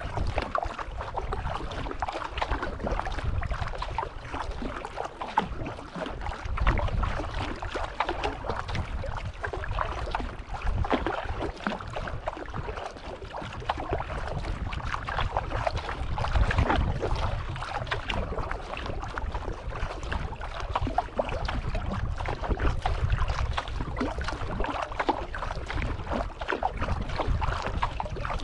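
Sea kayak being paddled on calm sea: paddle blades dipping and water splashing and trickling along the hull, with a low wind rumble on the microphone.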